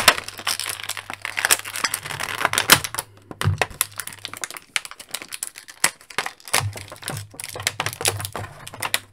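Clear plastic packaging crinkling and crackling in the hands as an action figure and its helmet are pulled out of the tray, with many irregular sharp crackles and a short lull a few seconds in.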